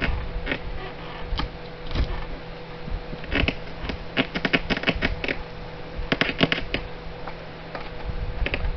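A run of sharp crackles and snaps, bunched in several quick clusters, as a frameless RV window is pried by hand out of the camper's fiberglass wall.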